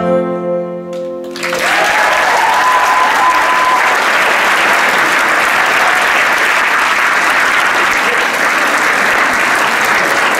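The last acoustic guitar chord rings out and fades, then an audience breaks into steady applause about a second and a half in.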